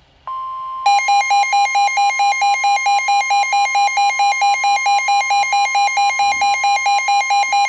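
Weather radio emergency alert signal. A steady high warning tone starts just after the beginning, and about half a second later a loud, buzzy beeping joins it, pulsing about four times a second. It announces a severe thunderstorm warning about to be broadcast.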